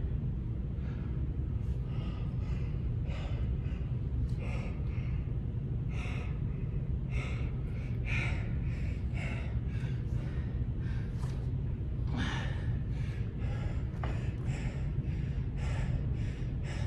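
A man breathing hard and fast, catching his breath after exertion, with a puff roughly every half second to second, over a steady low hum.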